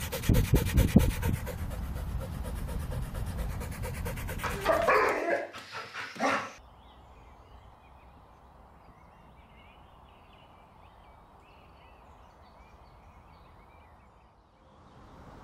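Dog panting rapidly, then two barks about five and six seconds in. After that, faint birds chirping over a quiet background.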